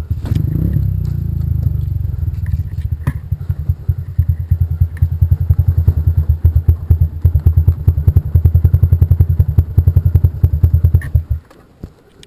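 Motorcycle engine running with a steady, throbbing beat, revving up briefly just after the start and then shutting off abruptly near the end.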